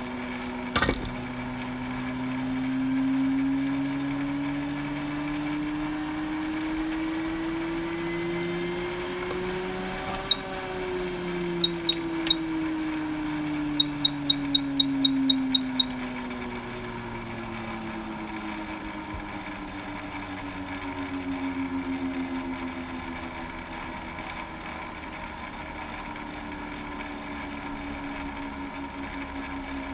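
A small electric motor hums steadily, its pitch slowly rising and then falling again. A click comes near the start, and a quick run of short, high electronic beeps comes in the middle.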